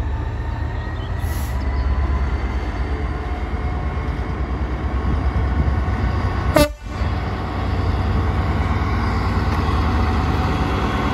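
Class 66 diesel locomotive's two-stroke V12 engine running under load with a steady low rumble as it pulls a freight train away. One short, sharp sound cuts in about six and a half seconds in.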